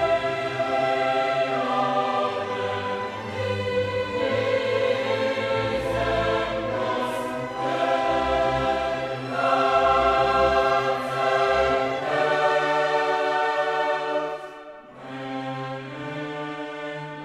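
Background music: choral voices with orchestra holding slow, sustained chords that change every second or two, dipping in loudness near the end.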